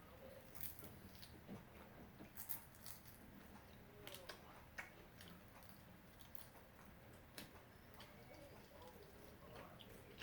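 Faint close-up eating sounds of fried chicken wings being chewed and picked at: soft chewing with scattered small clicks and mouth smacks, most of them in the first half.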